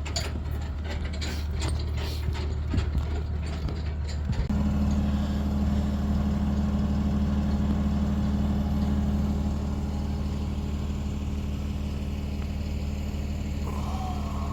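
Rapid metallic clicking and rattling for about four and a half seconds, then an abrupt switch to the steady drone of a crane's engine running.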